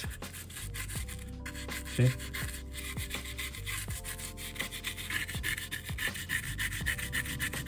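A stiff brush scrubbing a circuit board wet with isopropyl alcohol: rapid scratchy back-and-forth strokes of the bristles on the board, working the alcohol into the residue.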